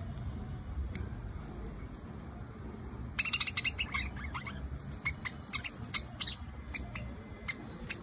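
Budgerigars chirping: a quick run of short, sharp chirps starting about three seconds in, then scattered single chirps, over a low steady background rumble.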